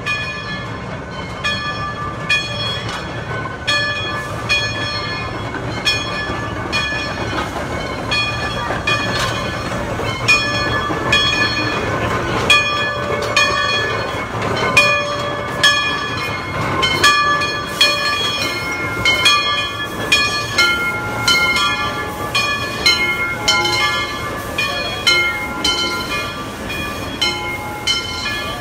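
Steam locomotive bell rung over and over at a steady pace, each strike ringing on, as a geared steam locomotive pulls into the station, with the locomotive and its cars rumbling underneath.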